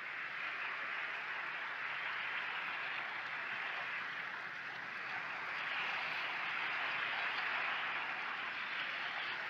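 Gentle sea waves lapping and washing on the shore: a steady hiss that swells a little about six seconds in.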